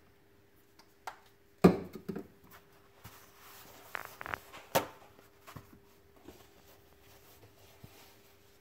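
Handling noise from a plastic squeeze bottle of cooktop cleaner over a glass-ceramic cooktop: scattered knocks and taps, the loudest a sharp knock about a second and a half in and another about halfway through.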